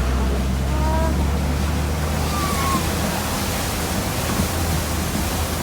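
Safari truck driving: a steady low engine hum under a broad rush of wind and road noise that grows stronger about two seconds in.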